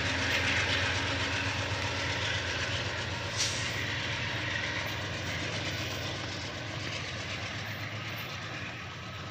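VIA Rail diesel locomotive and train running away into the distance, its steady engine hum and rail noise fading. One short sharp tick about three and a half seconds in.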